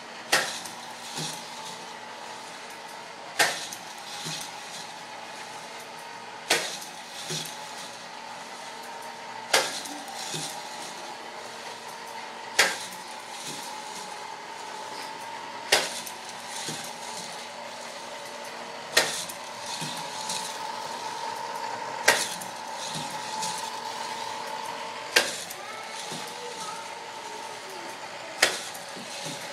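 Plastic K'nex roller coaster running: a steady mechanical hum under a sharp plastic clack that comes about every three seconds, each clack followed by lighter rattling of the track and pieces.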